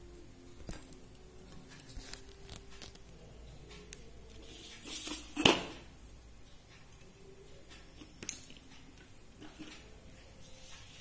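Handling sounds of a tissue-paper flower being set into a glass bottle vase: paper rustling and scattered light clicks, building to a short rustle that ends in one sharp knock about five and a half seconds in.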